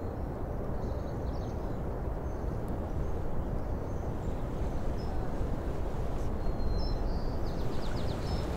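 Steady outdoor ambience, an even background noise, with a few faint high bird chirps about a second in and again near the end.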